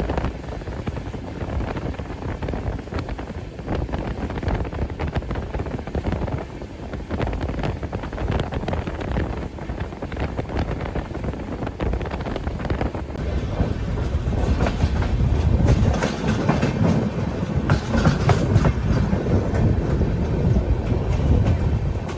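Indian Railways passenger coach running on the rails, heard from the open doorway: a steady rumble with the clickety-clack of the wheels over rail joints, growing louder in the second half.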